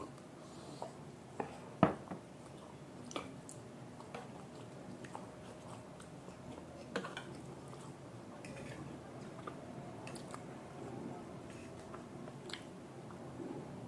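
Close-miked chewing and mouth sounds of people eating chow mein and momos, with scattered sharp clicks, the loudest about two seconds in.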